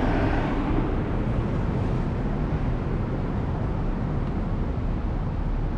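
Steady low rumble of road traffic on a city street, an even noise with no distinct events.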